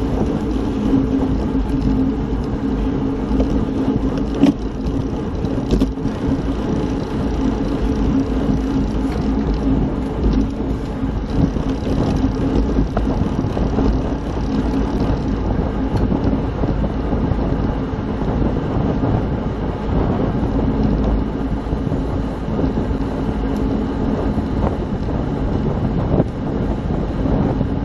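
Steady road noise from a moving ride: wind rumbling on the microphone over a steady low hum that holds one pitch throughout.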